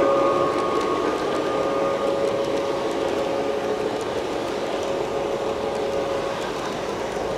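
LGB garden-scale model train coaches rolling past on the track: a steady rolling whir with a thin steady whine, fading slightly as the train moves on, with faint scattered ticks from the wheels.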